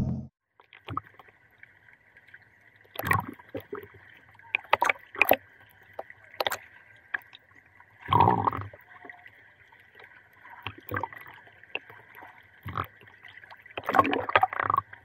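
Brushless UDIRC UDI005 RC speed boat running on the sea: a steady high motor whine, broken by irregular short splashes as the hull hits the water.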